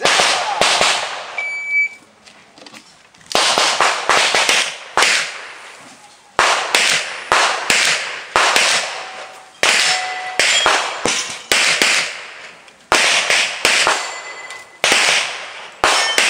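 Handgun shots fired in quick strings of two to five, a few shots a second with short breaks between strings, each shot trailing off in echo. Hit steel plate targets give short metallic rings after some of the shots.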